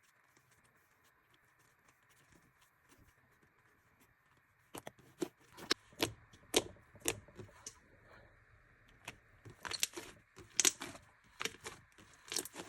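Fluffy slime being squeezed and stretched by hand, giving irregular sharp pops and clicks as air pockets burst. The pops start about five seconds in and come thicker near the end.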